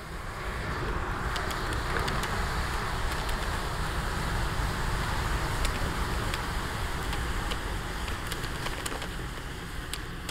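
Bundled matchsticks burning in a large flare: a steady rushing of flame that swells about a second in, with scattered sharp crackles.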